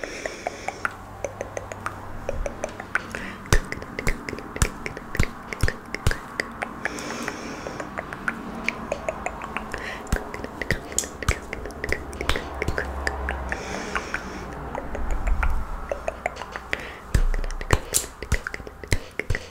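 Close-miked ASMR mouth sounds: rapid, irregular wet tongue clicks and pops, the 'coconut rain' trigger, with a few short breathy hisses in between.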